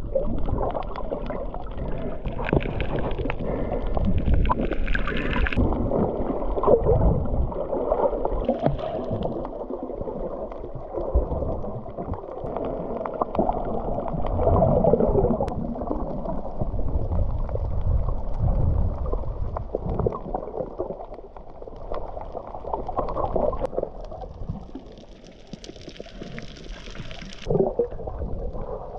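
Muffled, gurgling water sound picked up by a submerged camera, with irregular sloshing. A brief brighter hiss comes in about 24 seconds in and stops about three seconds later.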